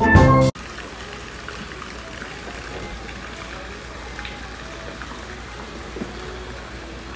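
Steel-pan music that cuts off suddenly about half a second in, then a steady hiss of trickling water from a pool fountain, with faint voices.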